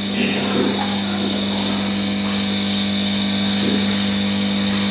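A steady low electrical hum, with a high, rhythmic chirping of crickets over it.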